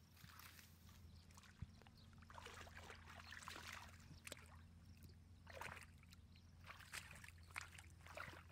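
Faint splashing and sloshing of hands groping through shallow muddy water, in a few short bouts.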